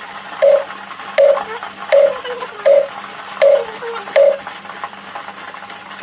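Six short, identical tones in a steady rhythm, about one every 0.7 seconds, each opening with a click: an edited-in sound effect.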